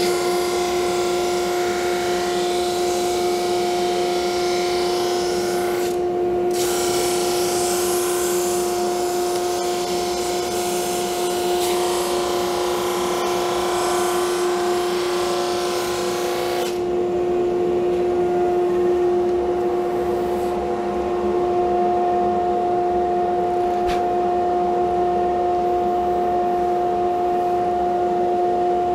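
Single-ended drum sander running with a steady hum while hardwood veneer is fed through and sanded, a loud hiss over the hum. The sanding hiss breaks off briefly about six seconds in, then stops about sixteen seconds in, leaving only the machine's hum.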